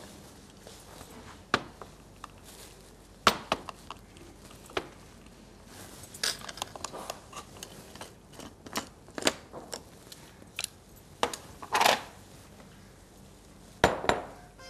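Kitchen mixer-grinder jar being lifted off its base and handled on the counter. Scattered clicks, knocks and a few short scrapes, the sharpest a little over three seconds in and near the end.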